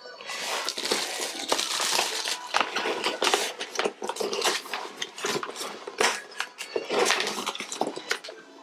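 Rustling, crinkling and light clicks of a cardboard beauty box and its packaging being unpacked by hand, with small items knocked and set down.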